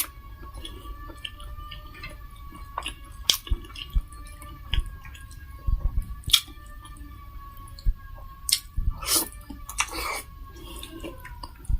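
Close-mic eating sounds of a person chewing a meal of rice and dal, with irregular wet clicks and smacks of the mouth. A faint steady, slightly wavering high tone sits behind them.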